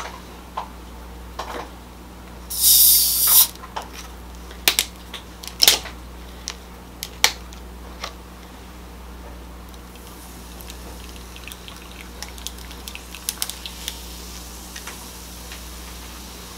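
Bottle of Coke Zero twisted open: a loud hiss of escaping carbonation for about a second, then a few sharp clicks at the cap. Later the soda is poured over ice in a glass jar, fizzing and crackling faintly.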